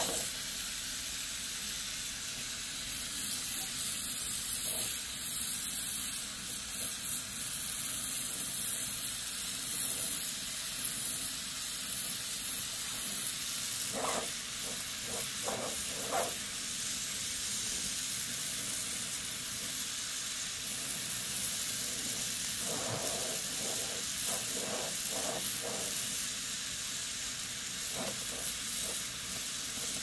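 Oxy-fuel gas torch with a Uniweld multi-flame tip hissing steadily as its flame brazes a copper air-conditioner pipe.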